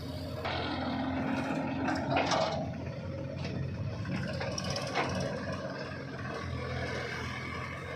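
Diesel engines of a backhoe loader and a tractor running steadily during mud loading, with a few clanks and scrapes, the loudest about two seconds in and another about five seconds in.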